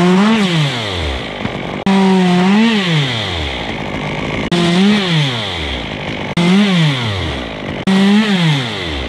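Stihl two-stroke chainsaw cutting at full throttle, five times in quick succession. Each cut starts abruptly on a steady high engine note that rises briefly and then falls away as the throttle is let off toward idle.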